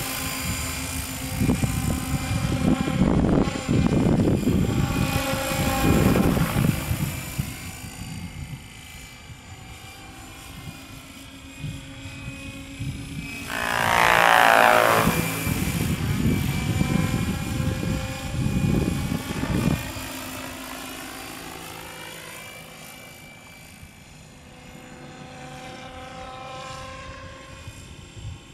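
Radio-controlled scale helicopter (Hirobo Sceadu with a Bell 222 fuselage) flying at high rotor speed, its whine rising and falling in pitch as it moves around. It is loudest in a close pass about halfway through, where the pitch drops, then fades as it flies off. Low rumbling of wind on the microphone comes and goes in the first several seconds and again shortly after the pass.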